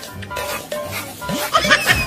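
Background music, with a few short rising sound effects near the end.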